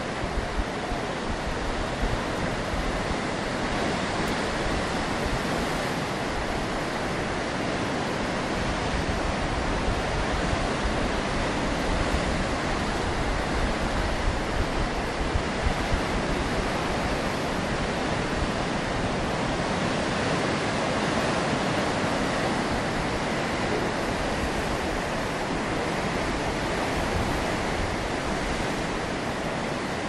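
Rough surf breaking and washing over a rocky shoreline: a steady rush of white water that swells a little around the middle.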